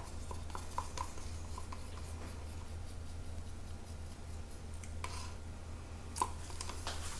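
Wooden craft stick scraping and tapping against a plastic cup as thick acrylic paint is scraped out, with a few light clicks near the start and short scrapes near the end. A steady low hum runs underneath.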